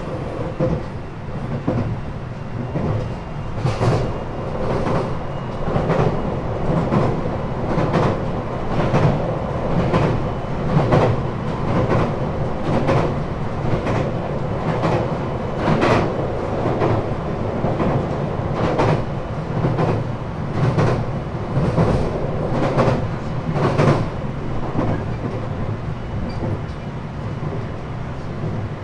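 521 series electric train heard from inside its motor car while running: a steady low rumble with wheels clacking over rail joints about once a second, the clacks stopping a few seconds before the end.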